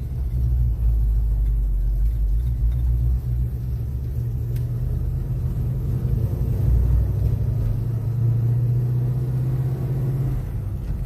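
Ford 351 Windsor V8 with a freshly regasketed Holley 600 carburetor, running as the car drives, a deep steady rumble that eases a little about ten seconds in.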